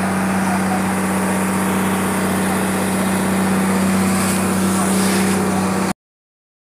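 Passenger boat's engine running at a steady drone with a constant low hum, mixed with rushing water and wind noise; it cuts off abruptly near the end.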